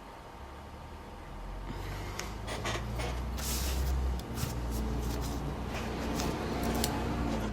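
Clicks, knocks and rustles of small objects being handled and set down on a workbench, over a steady low hum.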